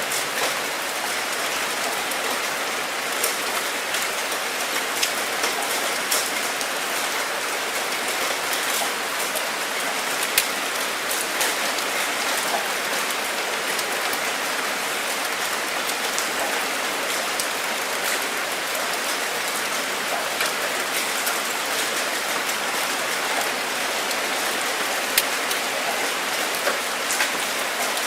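Steady rain falling, with a dense even hiss and scattered individual drops ticking on a surface.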